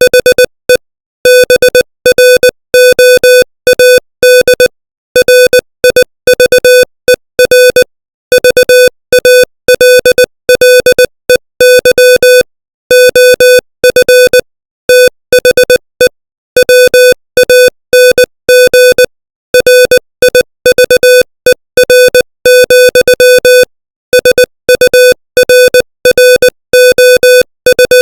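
Morse code sent at 20 words per minute: one steady electronic beep keyed on and off in short dots and longer dashes, with brief gaps between letters and words.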